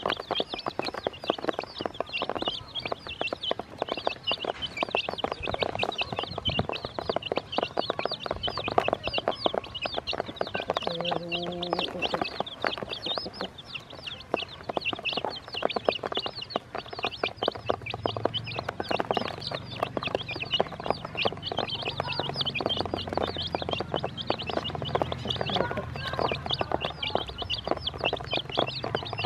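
A brood of baby chicks peeping constantly in quick, high cheeps, with many light taps of their beaks pecking feed off a plastic basin.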